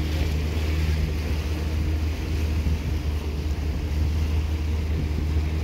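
Motorboat engine running with a steady low drone as the boat cruises, with water rushing past the hull and wind on the microphone.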